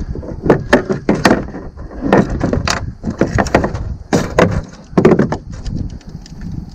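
Irregular knocks and thumps on the hollow plastic hull of a fishing kayak as a large northern pike is handled on its deck, thinning out in the last second or so.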